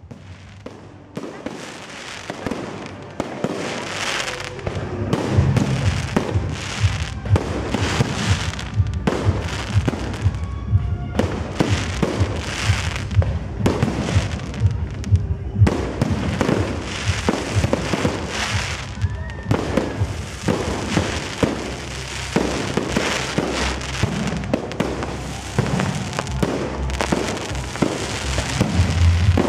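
Aerial fireworks display: a dense, continuous run of shell bursts, bangs and crackle with a deep rumble underneath, fading in over the first few seconds.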